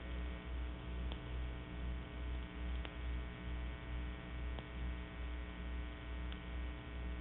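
Steady electrical mains hum on an old recording cut off above about 4 kHz, with a low throb that swells and fades about twice a second and a faint click about every second and three-quarters.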